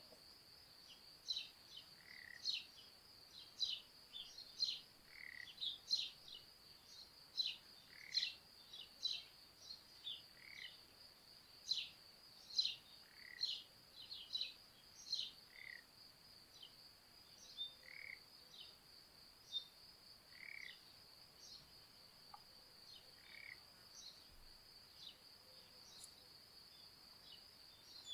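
Crickets trilling steadily with small songbirds chirping in quick short notes over them. A softer lower call repeats about every one and a half to two seconds, fading out about two-thirds of the way through.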